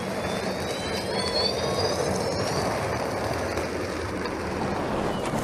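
Audi e-tron prototype electric SUV climbing a steep snow slope on spiked tyres: a high electric-motor whine rising slowly in pitch over the first few seconds, above a steady rushing noise.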